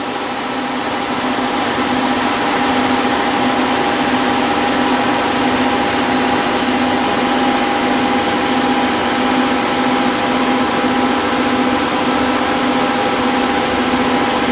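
Steady whirring hum of a powered-up Haas VF-5D vertical machining center at its electrical cabinet, the cooling fans and running spindle and servo drives giving a few steady tones over an even noise.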